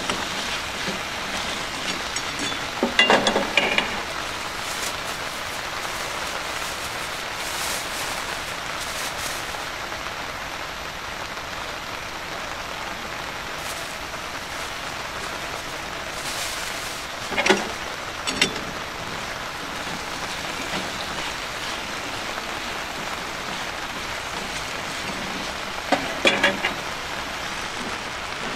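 A steady hiss of heavy rain mixed with sweet potato chunks sizzling in oil in an iron pan on a gas camp stove. Three short clattering sounds stand out: one near the start, one in the middle and one near the end.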